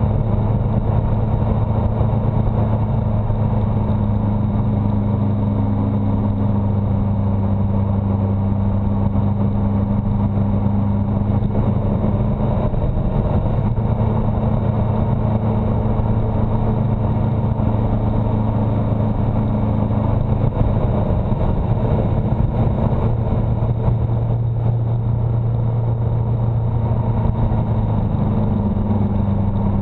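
Engine of the camera vehicle running at a steady cruise of about 35 mph: a steady low hum whose pitch shifts slightly a few times, over an even rush of road and wind noise.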